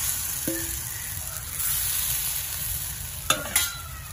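Rice batter sizzling as it is ladled into the hot moulds of an earthen chitoi pitha pan, the hiss strongest at first and fading about halfway through. Two knocks near the end as the clay lid is picked up.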